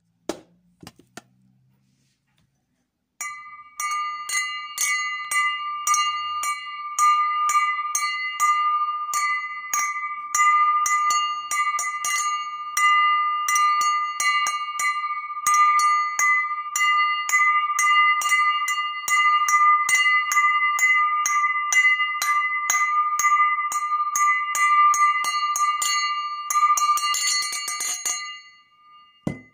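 Drinking glass rolled round on the edge of its base against a tabletop, ringing at a steady pitch with a regular clatter of rim taps. It starts about three seconds in, and the taps quicken into a rapid rattle near the end before it stops.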